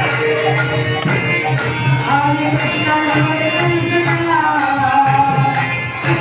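Kirtan: voices singing a devotional chant over a steady drum beat, about two strokes a second, with jingling percussion.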